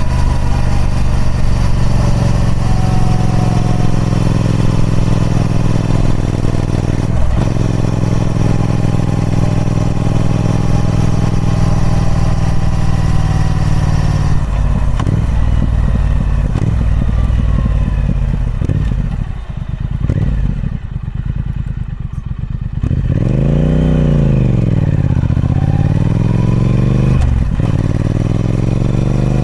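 Triumph Speed Twin 1200's 1200cc parallel-twin engine running through its stock exhaust, held at a steady cruise for about half the time. About two-thirds of the way in the throttle closes and the note drops and quietens. The revs then climb, dip and climb again as it pulls away.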